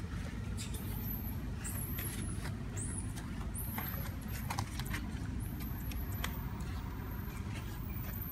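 Steady low rumble of outdoor background noise, with faint high-pitched falling chirps and a few scattered clicks.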